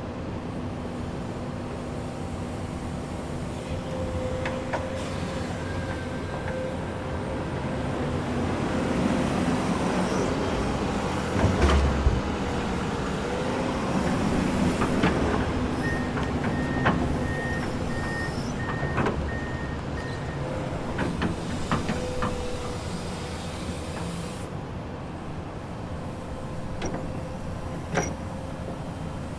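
Komatsu excavator running steadily, its engine drone carrying scattered metallic clanks and knocks, the loudest a heavy thump about twelve seconds in. Midway, a run of short, evenly spaced high beeps sounds for about four seconds.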